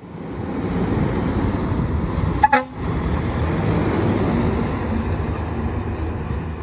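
Fire engine's diesel engine running with a steady low rumble as the truck drives past, with a short horn toot about two and a half seconds in.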